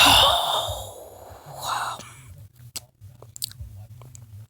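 A loud, breathy exhale close to the microphone that fades over about a second and a half, then a second shorter breath, followed by a few faint clicks.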